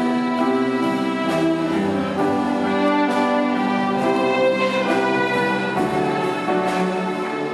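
Student symphony orchestra, strings with woodwinds and brass, playing live: sustained melodic lines with notes changing every second or so.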